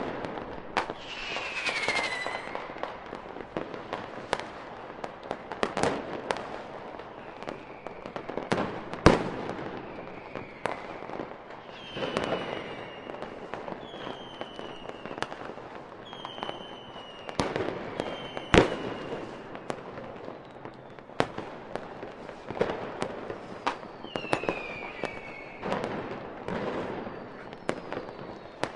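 Fireworks display: a steady run of sharp bangs and crackling bursts, the loudest about nine seconds in and again near nineteen seconds, with several short high whistles falling in pitch between them.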